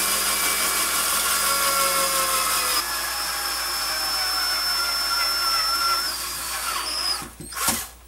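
Cordless drill running steadily as a twist bit bores through thin aluminium sheet into a wooden block beneath. The motor's whine sags a little near the end and stops about seven seconds in, followed by one short burst.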